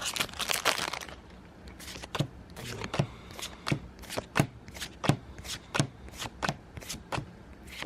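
Foil booster-pack wrapper crinkling for about a second, then Pokémon trading cards flicked through one at a time, a sharp card snap about three times a second.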